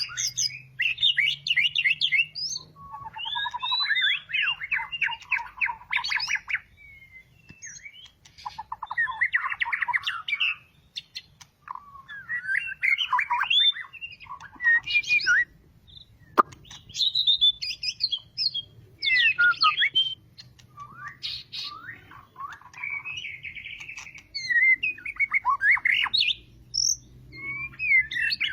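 White-rumped shama singing: a freshly moulted bird in full song. It delivers a run of varied phrases of whistles, trills and quick rising and falling notes, each a second or two long, separated by short pauses. A single sharp click comes about midway.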